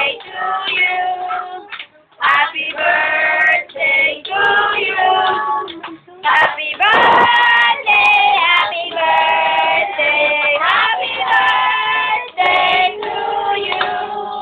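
A group of children and women singing a birthday song together in chorus.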